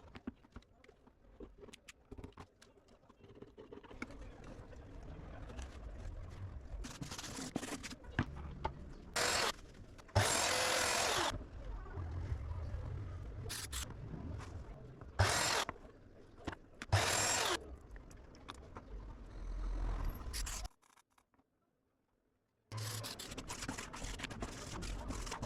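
Woodworking power tool working MDF in short bursts, each from half a second to a second and a half, separated by quieter handling noise. The sound drops out completely for about two seconds near the end.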